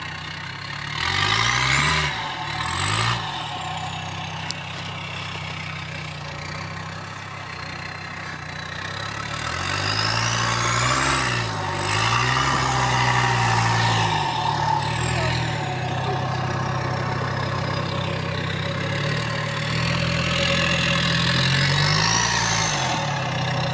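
Off-road SUV engine running and revving up in several bursts, the pitch rising and falling with each push, with a high thin whine that climbs and then slowly falls.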